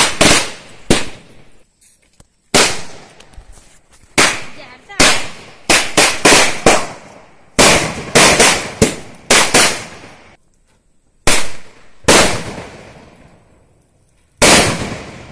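Firecrackers going off one after another, about twenty sharp bangs at irregular intervals, some in quick clusters of three or four, each dying away in a short echo.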